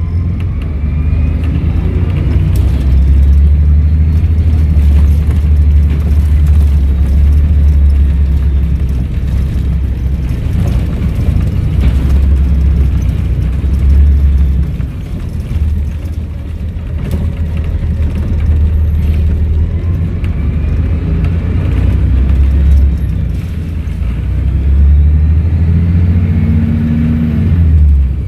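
Volvo B7RLE bus engine running under load, a steady low drone that eases off briefly about halfway through. Over it, a higher whine rises in pitch twice, once in the first few seconds and again about twenty seconds in.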